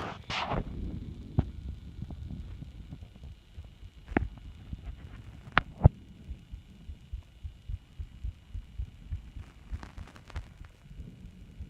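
Human heartbeat recorded close up: a steady run of low, even beats. A loud rustle comes right at the start, and a few sharp clicks come in the first half.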